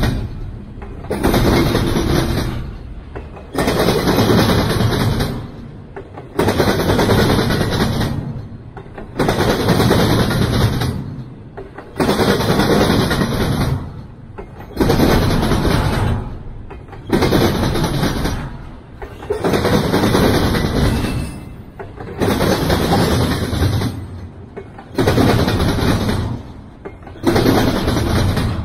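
Double-stack intermodal freight train rolling past at close range: a steady rumble of wheels on rail that surges with a sudden clatter about every two and a half seconds as each car's wheels go by, then dies back.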